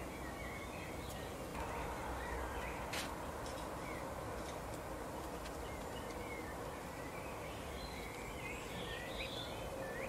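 Small songbirds twittering in short chirps that glide up and down, busiest near the end, over a steady outdoor hiss. A sharp click comes about three seconds in, with a few fainter ones just after.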